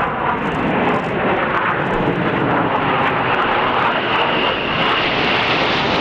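Steady jet noise from a formation of seven BAE Hawk T1 jets with Rolls-Royce Adour turbofans, climbing overhead at high speed, with a faint high whine coming through about four seconds in.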